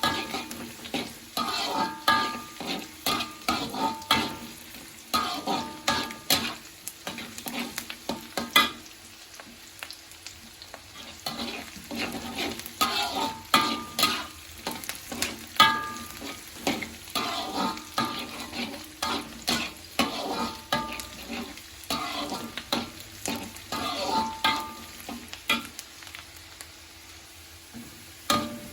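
A metal spatula stirring onions frying in oil in a pan, scraping and knocking against the metal in repeated bouts, each knock ringing briefly, with a sizzle underneath. The stirring pauses twice for a couple of seconds.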